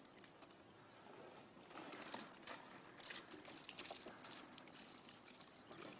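Faint, irregular crackling and popping over a soft hiss, typical of a burning bonfire.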